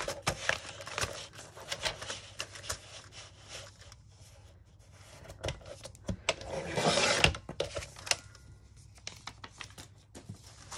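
Sliding-blade paper trimmer cutting through a large paper envelope in a single stroke lasting about a second, a little over six seconds in. Before the cut come light clicks and paper rustles as the envelope is lined up under the rail.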